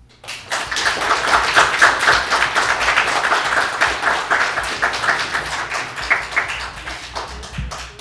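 Audience applauding. The clapping starts abruptly just after the start, is densest over the first few seconds and slowly thins out near the end.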